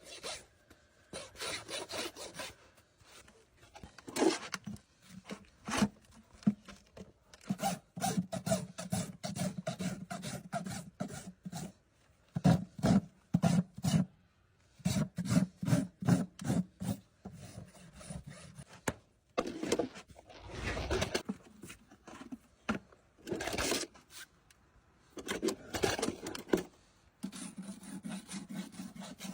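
Farrier's rasp filing a horse's hoof: repeated back-and-forth scraping strokes in runs, broken by short pauses.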